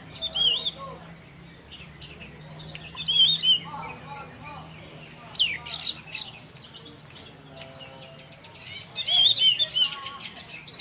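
Orange-headed thrush singing in the 'teler' style: bursts of rapid, varied high chirps and trills broken by short pauses, with one long falling whistle about halfway through.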